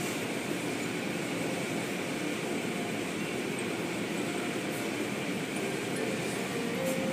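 Automatic car wash heard from inside the car: a steady rush of spraying water and the cloth brushes scrubbing over the body and windows.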